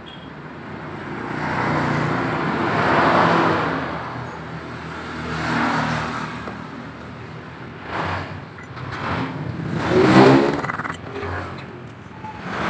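Motor vehicles passing on a nearby road, their engine noise rising and falling in several swells. A few sharp knocks come in the second half.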